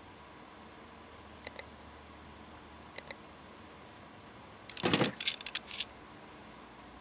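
Two quick double clicks, then a short clatter of several clicks with one louder knock about five seconds in, from small hard parts being handled.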